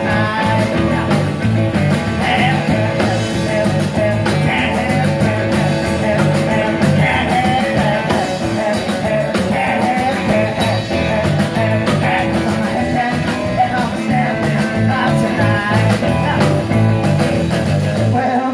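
Live rockabilly band playing loudly: an instrumental break of electric guitars over a drum kit and a steady, bouncing low bass line, between sung verses.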